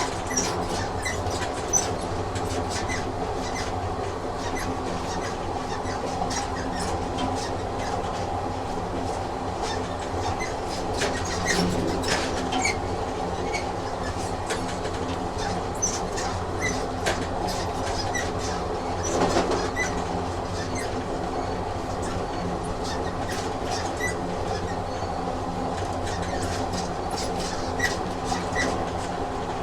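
Train sound effect: a moving train running with a steady hum and rumble, and frequent irregular clicks and knocks from the wheels and carriage, slightly louder twice along the way.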